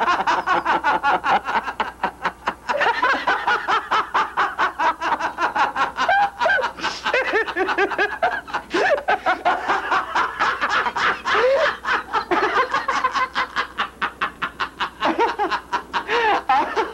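Men laughing heartily and without a break, in loud, rapid pulses of open-mouthed laughter.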